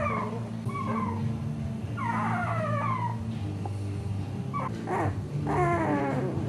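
Two-week-old American Staffordshire Terrier puppies whimpering and squealing: short, high-pitched cries that slide down in pitch, several in a row, with a cluster near the start, one at about one second, longer ones at two to three seconds, and more around five to six seconds.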